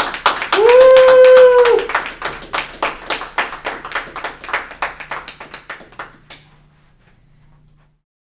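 Small audience applauding at the end of a poetry reading, with one person giving a long whoop about a second in. The clapping thins out and stops about six seconds in.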